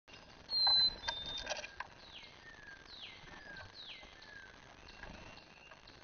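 A songbird whistles a clear phrase three times about a second apart: a high note sliding down, then a shorter lower note. Near the start come a louder, higher whistle and a quick run of sharp clicks.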